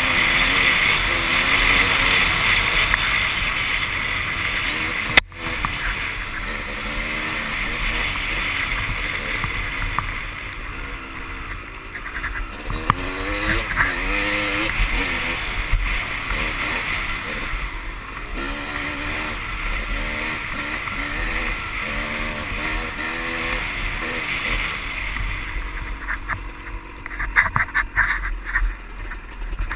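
Dirt bike engine revving up and down as it is ridden over a trail, with wind rushing over the helmet-mounted microphone. There is one sharp click about five seconds in, and near the end a run of knocks and rattles as the bike crosses rocky ground.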